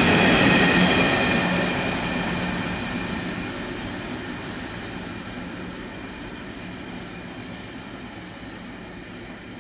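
Freight train of cement wagons behind twin WDG3A ALCO diesels rolling away, its rumble and wheel noise fading steadily.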